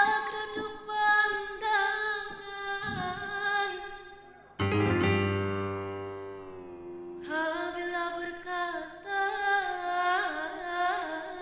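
A female soloist singing a Malay song in long held, wavering notes over keyboard accompaniment. About halfway a loud, low chord enters suddenly and fades over a couple of seconds, then the solo voice comes back in.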